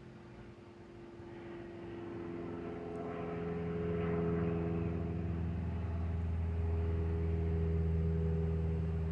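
A steady, low-pitched engine hum that grows louder over the first few seconds and then holds.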